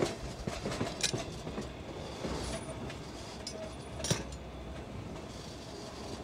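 Former Erie Lackawanna caboose rolling slowly on the rails: a steady rumble of wheels and running gear with a few sharp clanks, the loudest about four seconds in.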